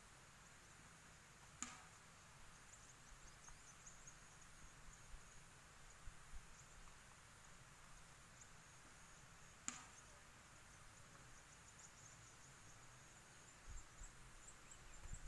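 Near silence with faint high insect chirping, broken by two sharp snaps, one about one and a half seconds in and one about ten seconds in, and low rustling thumps near the end.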